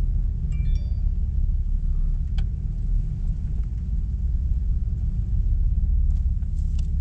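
Car or truck engine running with a steady low rumble while the vehicle is moved at low speed, with a few faint clicks.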